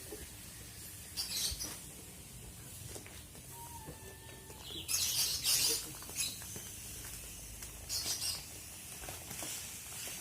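Plastic mattress wrapping rustling and crinkling in three short bursts as it is handled.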